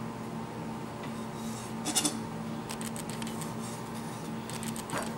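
Chef's knife cutting through puff pastry sheets and knocking lightly on a wooden cutting board: a few soft taps and scrapes, the clearest about two seconds in. A steady low hum runs underneath.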